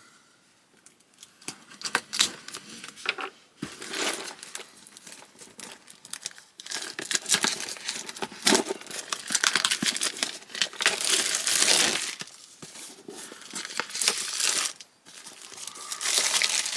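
Packaging of a building-brick set being opened and handled: irregular crinkling and rustling with small clicks, starting sparse and becoming busier and louder about halfway through.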